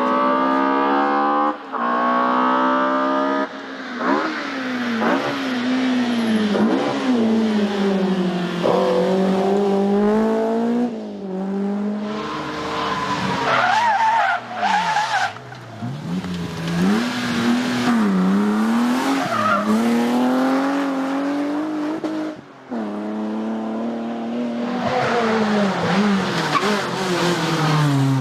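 Rally car engine revving hard, its pitch climbing and falling again and again as it accelerates, shifts gear and brakes for corners, with brief drops in sound at the gear changes.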